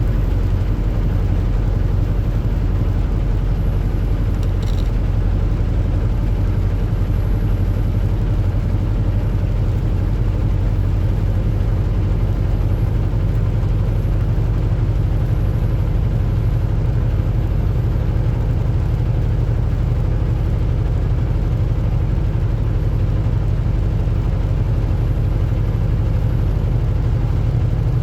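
Semi-truck engine and road noise heard from inside the cab while driving: a steady low drone that does not change.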